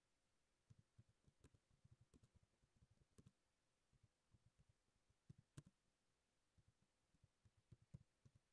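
Faint computer keyboard typing: irregular key clicks in short runs with brief pauses between them.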